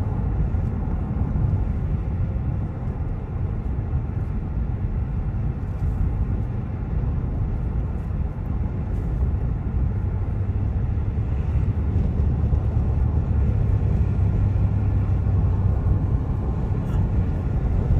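Car interior road noise: a steady low rumble of engine and tyres while driving, growing a little louder after about twelve seconds.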